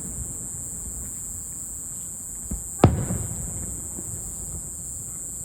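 Aerial firework shells bursting: a faint thump about two and a half seconds in, then a loud sharp bang with a short rumbling tail, and another bang right at the end. Insects chirr steadily at a high pitch underneath.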